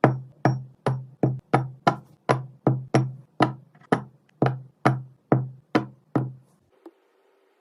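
Background music: a steady beat of sharp, woody percussive hits, each over a low tone, about two and a half a second. The beat stops about six seconds in.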